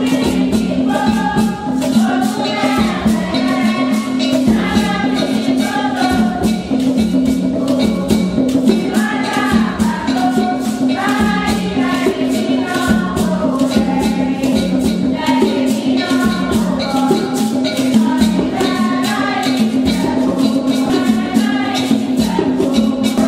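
A group singing a traditional Beninese Vodoun song together, accompanied by rapidly shaken rattles, over a steady low tone that alternates between two pitches.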